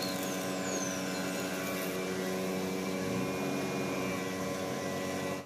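Electric arc welding on steel: a steady humming buzz over a hiss of crackle, which cuts off abruptly at the end.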